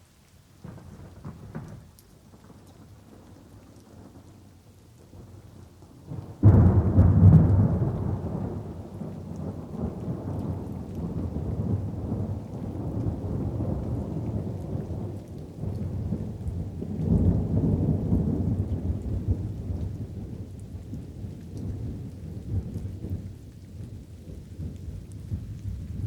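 Thunder over light rain: a faint rumble about a second in, then a sudden loud clap about six seconds in that rolls on, swells again midway and slowly eases off, with light rain falling throughout.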